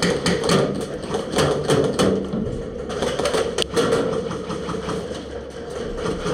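Airsoft guns firing in rapid strings of clicking shots.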